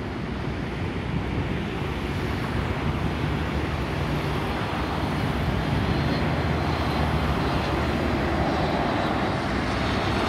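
Jet engines of a Boeing 737 MAX 8 airliner (CFM LEAP-1B) on final approach. They make a steady rumbling rush that grows gradually louder as the plane comes closer.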